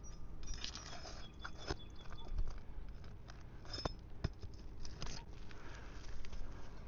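A steel flat bar working under asphalt roof shingles to pull the roofing nails: scattered scraping and sharp metal clicks, with a few brief high squeaks.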